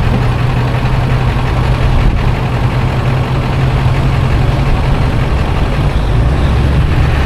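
A vehicle engine running at a steady low drone with road and wind noise, as picked up by a camera mounted on the outside of a vehicle driving behind a ladder fire truck.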